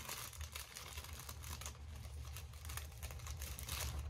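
Thin plastic wrapper film crinkling and crackling in quick, irregular clicks as it is pulled out from a sheet of seaweed, over a low steady hum.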